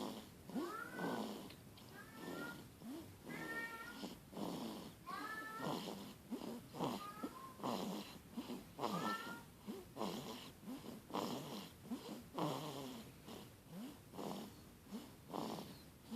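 A sleeping baby snoring: a quick, rasping breath about once a second, many of them in the first half carrying a thin, squeaky whistle.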